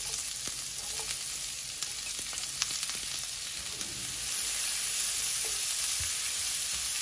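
Chopped onions sizzling in foaming butter and bacon fat in a cast-iron skillet as metal tongs stir them, with a few clicks of the tongs against the pan. The sizzle grows louder about four seconds in.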